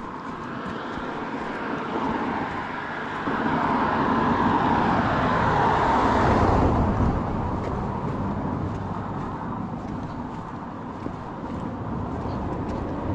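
Cars passing on a busy rural road: one builds up and goes by about six or seven seconds in, and another is approaching near the end.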